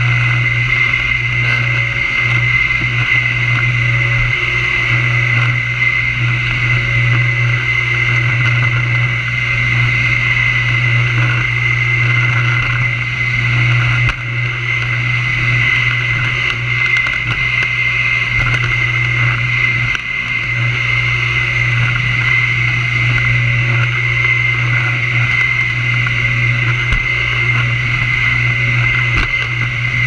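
Bagless upright vacuum cleaner running on carpet: a steady high motor whine over a low hum, dipping briefly twice.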